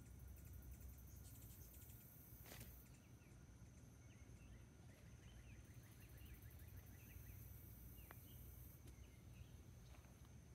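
Near silence: faint outdoor ambience with a steady high insect whine, a very high insect buzz that comes and goes, and soft scattered bird chirps.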